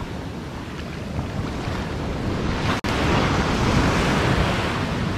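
Ocean surf washing and breaking on a sandy beach, with wind on the microphone. A brief dropout a little under three seconds in, after which the surf is louder.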